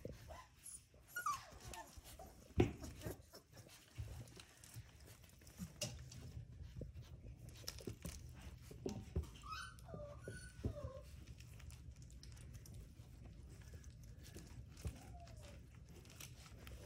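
Standard poodle puppies giving a few short, high whines and yips that slide down in pitch, with soft bumps and scuffling among them.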